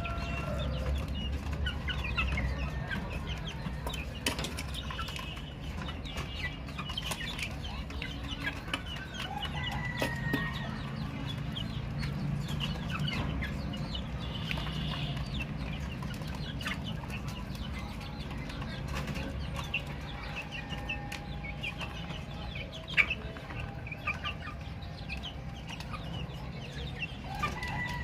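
Baby chicks chirping: many short, high peeps overlapping continuously over a low steady rumble, with one sharp click about two-thirds of the way through.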